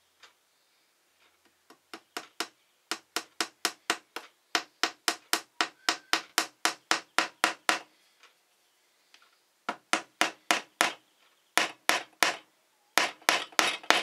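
Small hammer tapping a thin nail through a glued wooden disc foot into a wooden board: quick light taps, about three to four a second, in several runs with short pauses between them.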